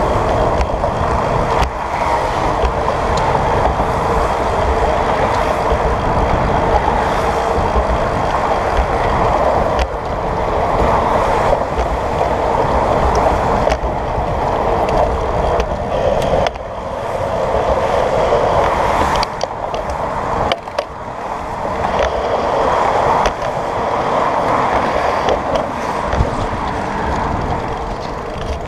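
Wind rushing over the microphone of a handlebar-mounted camera on a moving bicycle, over a steady rumble from the tyres rolling on pavement and cars passing on the road alongside. The noise dips briefly a couple of times past the middle.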